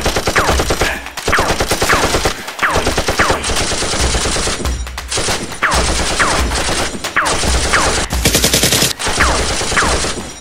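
Automatic-gunfire sound effects in repeated volleys of about a second each, separated by short gaps, with falling whines like bullets whizzing past. The gunfire is laid over a Nerf blaster fight and is not the blasters' own sound.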